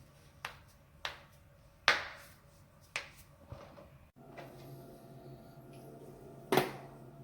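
Spinal joints cracking as the neck or back is twisted: five sharp pops, the loudest about two seconds in and near the end.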